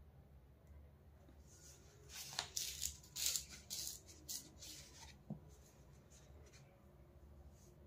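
Faint rustling and brushing of hands and a plastic squeeze bottle of rangoli powder being handled, a quick run of soft hissy rustles from about two seconds in to about five seconds in, with a light tap near the end of them, over a low steady room hum.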